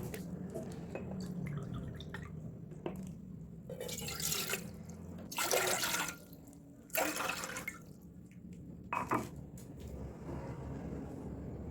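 Water pouring and splashing in about four short bursts, with a few light clicks between them, as liquid is handled while preparing the remedy.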